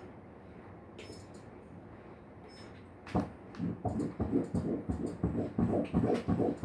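Fetal heartbeat at 11 weeks heard through an ultrasound Doppler: fast whooshing pulses, about three a second, starting about three seconds in after a low hiss.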